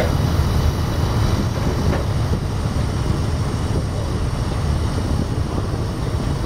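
Motor ship's diesel engine running with a steady low hum, heard from on deck, with wind on the microphone.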